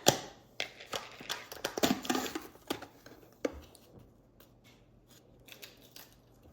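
Crisp snapping and crunching of Pringles chips being bitten and chewed, thick for the first few seconds, then thinning to occasional faint crackles.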